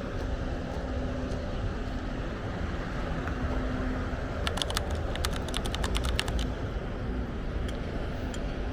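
City street ambience: a steady rumble of traffic with a faint engine hum, and about halfway through a quick run of sharp clicks, some fifteen in two seconds.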